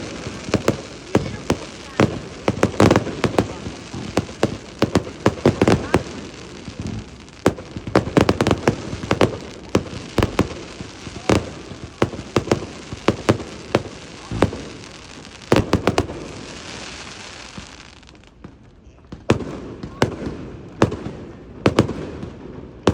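Fireworks going off: a rapid run of sharp bangs and crackling pops, with a hissing stretch about two thirds of the way through, then a short lull before more bangs near the end.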